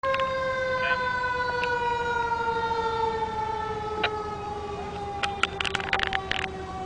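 Fire engine siren sounding one long tone that falls slowly and steadily in pitch. A cluster of short sharp sounds comes about five to six and a half seconds in.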